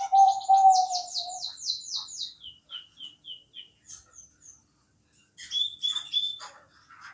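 Zebra dove (perkutut) cooing: a low, pulsing coo that ends about a second and a half in. It is overlapped by a fast run of high, falling chirps from a small songbird, followed by four short chirps and, after a pause, another brief high chirping phrase.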